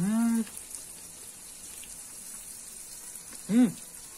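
A man makes two short closed-mouth 'mm' sounds while chewing food, one at the start and a briefer one about three and a half seconds in. A steady faint high hiss runs underneath.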